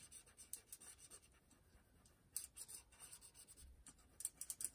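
Green felt-tip washable marker scratching faintly over aluminium foil in short colouring strokes.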